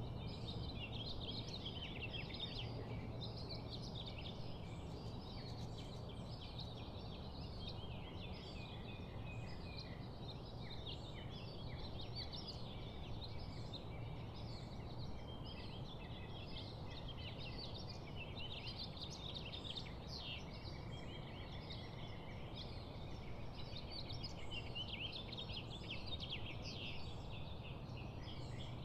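Many birds chirping and calling at once in a dense, continuous chatter, over a steady low background hum.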